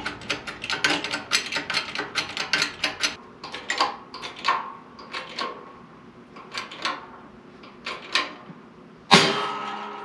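Hand-pumped hydraulic shop press working: a rapid run of clicks from the pump handle as pressure builds on a Toyota rear axle shaft held in the press jig. About nine seconds in comes one sudden loud bang with metallic ringing, as the shaft lets go under the pressure and breaks free of its drum brake and bearing.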